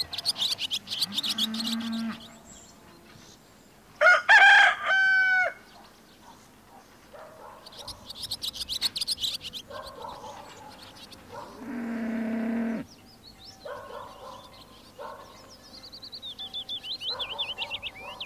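A rooster crows once, the loudest sound, about four seconds in. Songbirds trill at the start and near the end, with shorter clucking calls in between.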